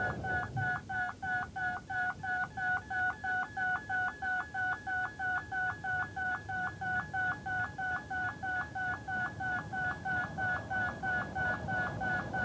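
Railway level crossing warning alarm: an electronic two-tone sound switching between a high and a low note about three times a second, warning that a train is approaching.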